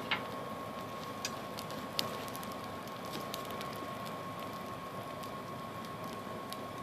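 Hairdryer blowing air into a coal forge fire: a steady rushing hiss with a thin, steady whine. A few sharp clicks stand out near the start, about a second in and about two seconds in.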